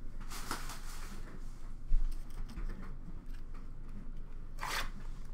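Hands handling sealed cardboard boxes of hockey cards: a run of light clicks and taps, a low thump about two seconds in, and a short rustle near the end.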